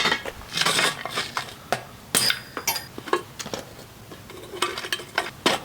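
Small pieces of scrap metal clinking and clattering as they are handled and dropped onto other metal, a string of irregular sharp knocks, a few with a short bright ring.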